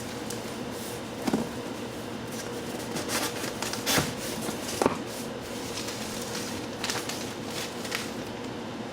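Unpacking a shipping box: packing material rustling and a few sharp knocks as things are handled, in scattered bursts over a steady background hum.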